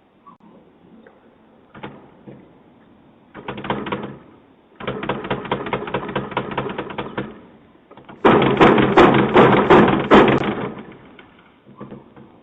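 Rapid, heavy pounding on a door in three flurries of many quick blows, the last and loudest about eight seconds in, picked up by a doorbell camera's thin-sounding microphone.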